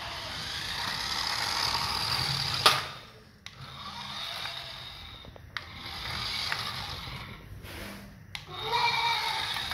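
A battery-powered toy car's small electric motor and plastic gears running as it drives across a concrete floor. The running drops out briefly twice, and there is one sharp click about two and a half seconds in.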